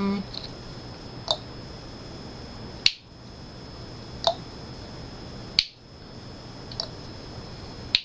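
A series of about six short, sharp clicks, spaced a second or so apart, over a faint steady hum.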